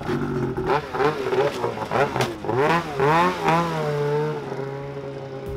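Snowmobile engine revved in a series of quick blips, its pitch swooping up and down, then held at a steady pitch as the sled is ridden off a pickup truck's bed, with a few clattering knocks.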